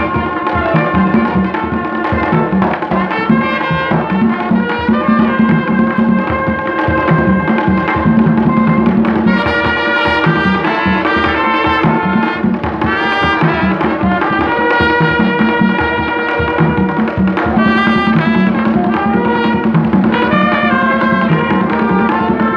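Live Haitian folk band playing: trumpet lines and held horn notes over steady beating on tall hand drums.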